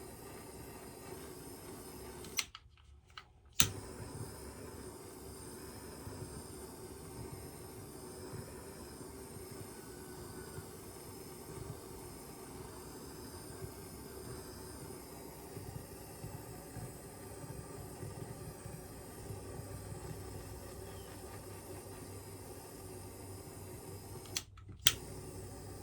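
Steady fan-like hum in a small room, cut by two brief dropouts with sharp clicks, about two and a half seconds in and near the end.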